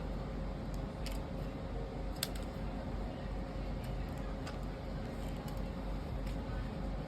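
Steady background hum with a few faint, short clicks or taps scattered through it.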